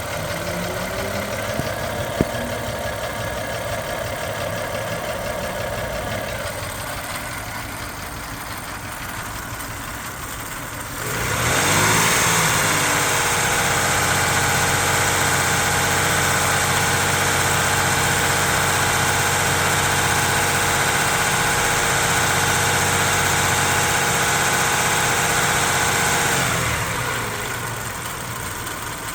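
Toyota 3.4 L 5VZ-FE V6 running with a misfire after a head gasket replacement. It idles, is revved up sharply about a third of the way in, holds a steady higher speed for about fifteen seconds, then drops back to idle near the end.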